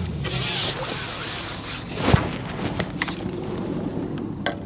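Fishing tackle being handled as a landed carp is dealt with in the landing net: a short rush of noise at the start, one sharp knock about two seconds in, then a few light clicks.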